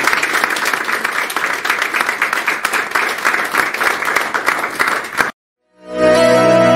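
Audience applauding, a dense patter of hand claps that cuts off abruptly about five seconds in. After a brief silence, music with steady sustained notes fades in near the end.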